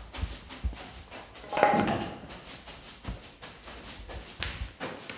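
Scattered knocks and clunks as a wooden roof-window frame fitted with steel angle brackets is handled, with a louder scraping clatter about a second and a half in and a sharp knock a little after four seconds.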